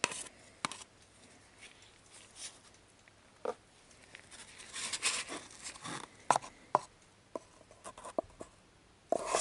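Scattered light taps and clicks, with a brief rustle about five seconds in: small handling sounds at a workbench as a paper cup of mixed urethane resin is brought over and poured into a mould.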